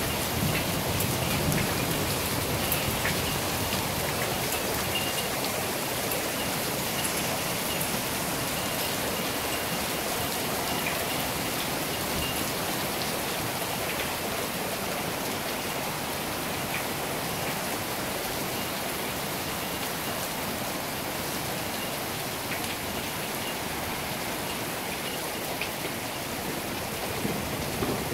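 Heavy rain pouring down steadily, drops splashing on wet paving.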